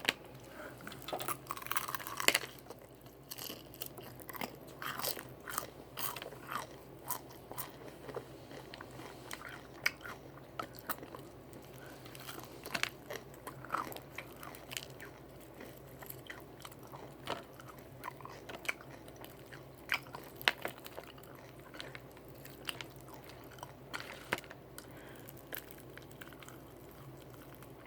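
Close-up chewing and biting into Popeyes fried chicken: irregular crunches and wet mouth clicks, with a faint low hum underneath.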